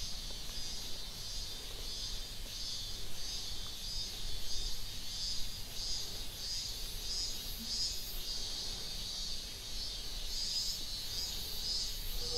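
Insects chirping in a steady, even rhythm of high-pitched pulses, a little under two a second, over a faint low hum.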